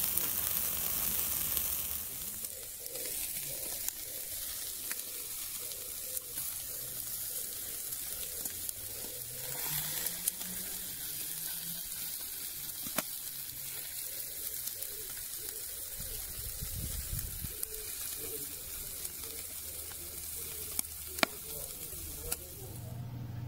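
Meat sizzling over a charcoal grill: a steady high hiss with scattered sharp pops and crackles. The hiss drops a little about two seconds in.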